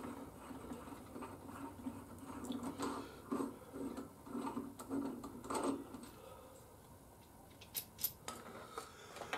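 Faint clinks and taps of small metal parts being handled, a scattering of light clicks with a few slightly louder ones about three and a half and five and a half seconds in.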